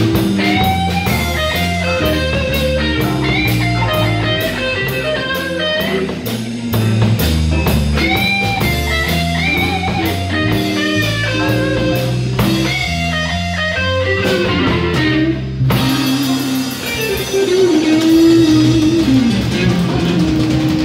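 Live band playing an instrumental passage: an electric guitar lead with bent notes over bass guitar and a drum kit with a steady hi-hat. About three-quarters of the way through the drums drop out and a descending line slides down onto a held note.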